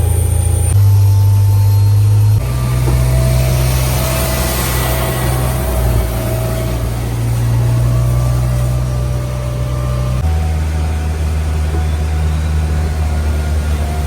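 Heavy engines running with a steady low rumble, the pitch of the rumble shifting suddenly about a second in, again at two seconds and once more around ten seconds in.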